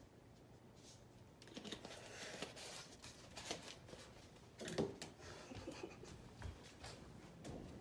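Faint, irregular rustling and light knocks of things being handled and moved in a small room, with a louder knock about five seconds in.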